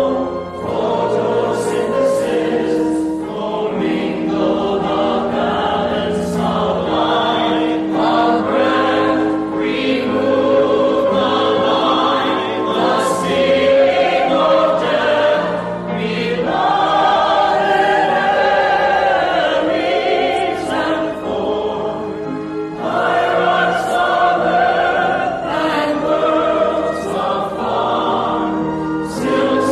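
A choir singing a slow hymn-like song, with long held notes that change every second or two.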